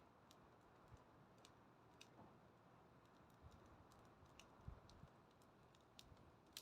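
Faint crackling of a wood bonfire: irregular sharp pops, about two a second, over a low hiss.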